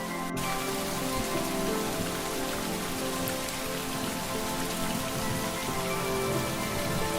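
Steady rain falling, laid over soft background music of long held tones. The rain fills out suddenly at an edit about a third of a second in.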